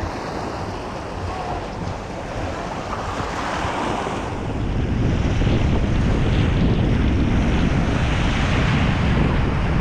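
Sea waves washing on the shore under wind buffeting the microphone, the wind rumble getting stronger about halfway through.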